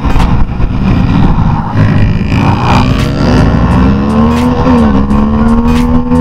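Bajaj Pulsar RS200's single-cylinder engine heard onboard at speed, its pitch rising as it pulls through the revs, with a brief dip for a gearshift about five seconds in, over heavy wind noise on the microphone.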